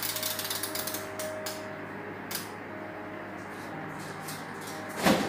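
Mechanical timer knob on an electric oven being turned, its mechanism clicking and creaking irregularly as it is set to 30 minutes, over the oven's steady low hum. A single louder knock comes near the end.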